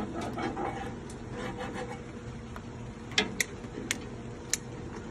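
Four sharp clicks in the second half, spread over about a second and a half, from a long-stem lighter being sparked at a propane grill burner, over the steady hiss of gas burners already burning.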